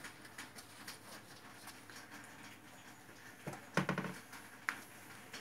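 A puppy's claws clicking and pattering on a wooden floor as it moves about, in a run of light, uneven ticks. About four seconds in comes a louder, short voice-like sound, then a brief high squeak.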